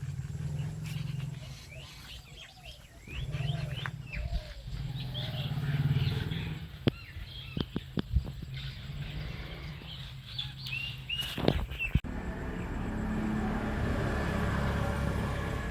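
Small birds chirping in quick rising notes over a low steady rumble, with a few sharp clicks; about three-quarters of the way in, the chirping stops abruptly and a steady low rumbling noise takes over.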